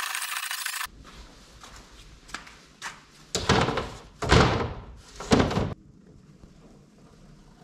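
A hand plane shaving a wooden board, cutting off abruptly under a second in. Then a low hum with a series of thunks and knocks as a thin wooden panel is handled and laid onto a wooden frame, the three loudest close together in the middle.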